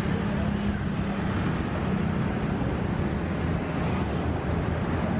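Steady outdoor traffic noise, a mix of road vehicles going by, with a low engine hum that is strongest for the first couple of seconds and then fades.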